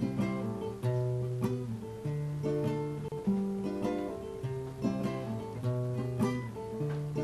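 Acoustic guitar played solo, chords strummed in a steady rhythm: the instrumental introduction to a song.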